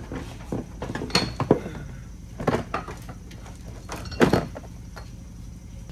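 Scattered metal clunks and knocks as a front CV drive axle is worked out of the steering knuckle and hub, the sharpest about four seconds in.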